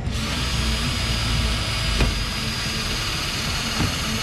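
Cordless drill running at speed, boring a hole up into the underside of a Toyota Innova's front bumper to mount a nudge guard. There is a steady motor whine under the cutting noise and a few single knocks. The drilling starts abruptly.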